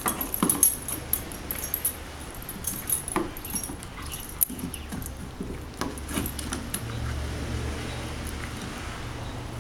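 A dog mouthing and chewing a stick, with scattered clicks and its collar tags jingling.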